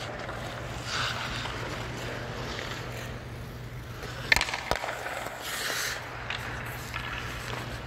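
Ice skates scraping and gliding on rink ice, with a steady low hum underneath. Two sharp clacks, the first the loudest, come a little past the middle.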